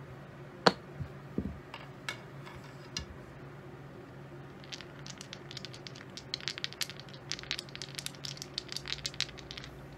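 Clay poker chips clicking together in a hand: a few single clicks in the first three seconds, then from about five seconds in a fast, uneven run of clicks as a stack of chips is handled and clacked in one hand.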